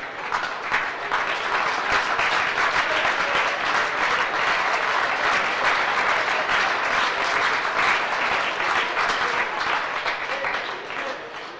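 Arena crowd applauding after a badminton rally ends: dense, steady clapping that breaks out suddenly and dies away near the end.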